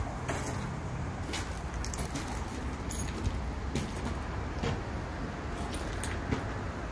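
Footsteps crunching on gravel, heard as irregular sharp clicks over a steady low rumble.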